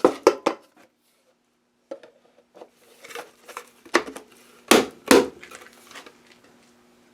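Knocks and clicks of a blowtorch being fitted into a bored-out plastic 3D-printer spool base, a few light clicks at first, then scattered knocks with the two loudest a little after four and a half seconds in. A faint steady hum runs under the second half.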